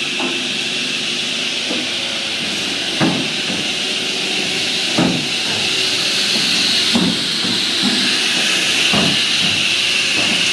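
Electric-driven homemade firewood machine running at speed just after being switched on: a steady high whine and hiss, with sharp knocks about every two seconds.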